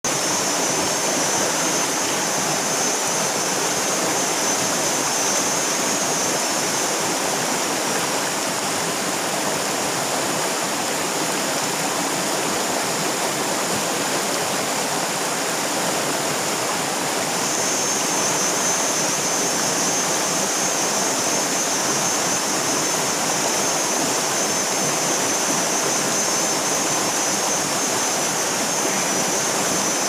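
Rocky river rushing over shallow rapids: a steady, unbroken roar of flowing water.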